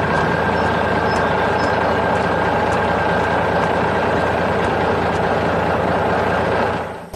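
Heavy vehicle engine running steadily, dropping away shortly before the end.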